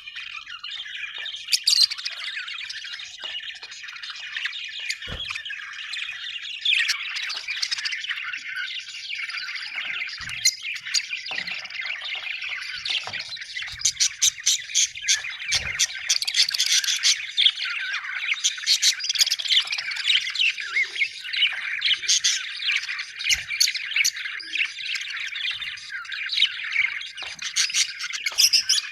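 A flock of budgerigars chattering and chirping together, many overlapping warbles, squawks and sharp chirps, busier in the second half.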